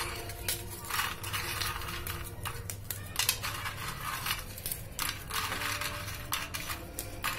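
Dry milk biscuits being snapped and broken by hand over a plastic plate: irregular crisp cracks and crunches that come in short clusters.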